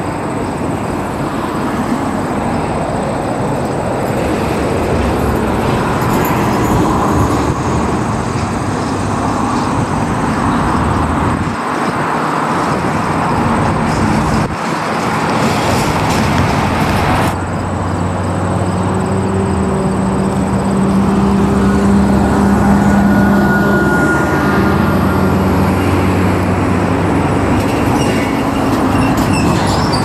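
Vehicle noise: a motor vehicle or train running, with a steady droning hum that gets stronger after a sudden change about 17 seconds in.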